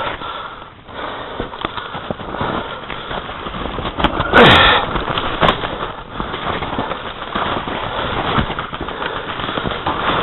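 Airsoft guns firing: a scatter of irregular sharp pops and clicks, with one louder, longer burst of noise about four and a half seconds in.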